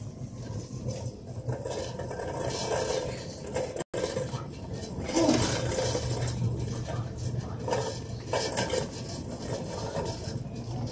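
Metal shopping cart rattling and clattering as it is pushed along a store floor, over a steady low hum and faint voices. The sound cuts out for an instant about four seconds in.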